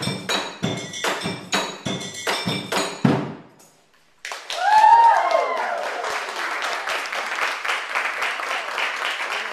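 Percussion instruments made from recycled materials (painted oil drums and a wooden box drum) beaten with sticks in a steady beat, some strikes ringing with pitched notes. The playing stops about three and a half seconds in, and after a brief silence an audience cheers, whoops and applauds.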